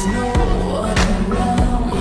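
Pop music with a steady beat of deep kick drums and sharp snare hits.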